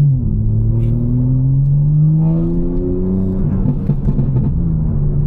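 BMW M4's S58 twin-turbo inline-six engine pulling under light throttle. Its note drops in pitch right at the start, then rises steadily for about three and a half seconds and holds steady.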